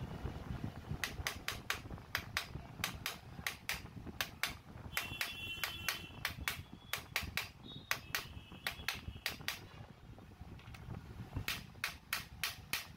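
A hammer tapping on a pipe to drive a new bearing into place: a quick run of sharp metal taps, about four a second, pausing briefly about ten seconds in. Some strikes ring with a short metallic tone.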